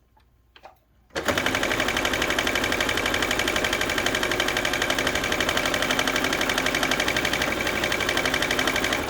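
Baby Lock sewing machine starting about a second in and running at steady high speed with a rapid, even stitching rhythm, sewing a seam through layered fabric and batting, then stopping abruptly at the end.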